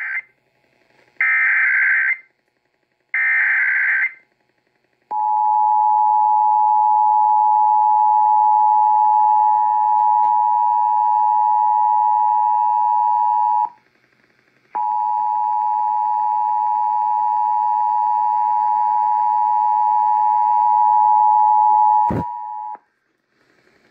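Emergency Alert System broadcast signalling: the last of the digital header data bursts, two short screeching bursts about a second apart, then the two-tone EAS attention signal sounding twice, each time for about eight and a half seconds with a one-second gap between. A brief thump comes just before the second tone stops. This opens a required monthly test of the state's alert system.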